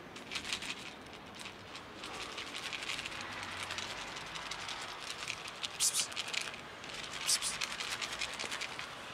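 Close scratching and rustling noise in quick irregular clusters, with two louder crackling bursts about six and seven seconds in.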